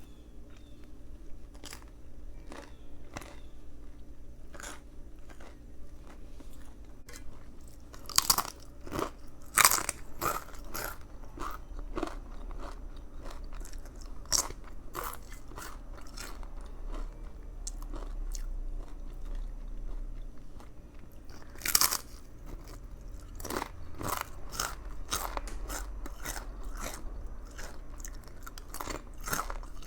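Close-up eating sounds of a Subway veggie patty sandwich: bites and chewing with crisp crunching and wet mouth clicks, the loudest crunches about eight to ten seconds in and again about twenty-two seconds in.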